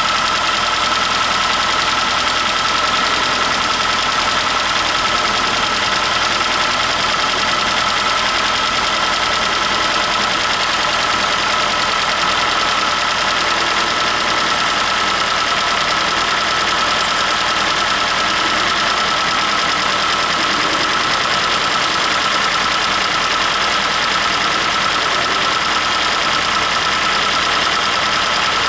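Hyundai i40's 2.0 G4NA four-cylinder petrol engine idling steadily with a knock that shows while it warms up at freezing temperature and goes away once the engine is hot.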